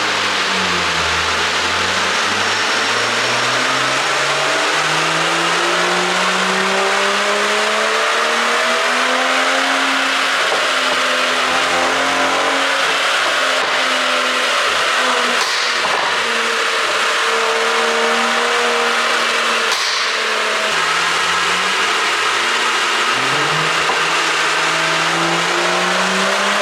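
Mercedes-Benz CLS450 4Matic's turbocharged inline-six, with an ECU tune for exhaust pops, being driven: the engine note climbs under acceleration, holds, drops about three-quarters through, then climbs again. Two short sharp cracks come near the middle.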